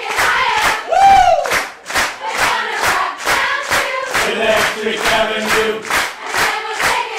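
Crowd of many voices singing and shouting along together, with steady rhythmic hand clapping at about three claps a second and a whooping shout that falls in pitch about a second in.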